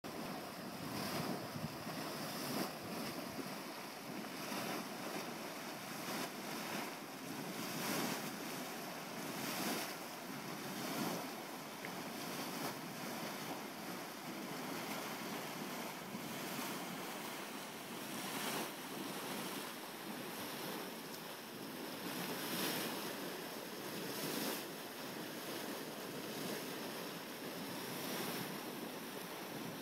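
Churning Caldron, a boiling thermal pool, churning and splashing: a steady rushing noise with irregular surges every second or two.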